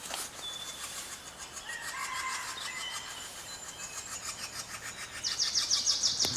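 Wild birds singing: a few clear whistled notes at different pitches, then a loud, fast, high trill near the end, over a faint steady hiss.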